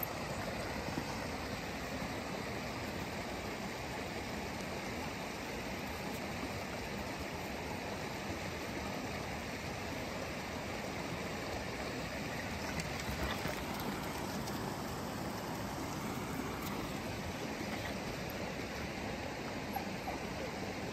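Steady rushing of a creek flowing over rocks.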